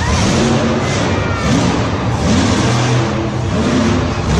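A motor revving in short surges over a steady noisy rumble, rising in pitch several times, about once a second.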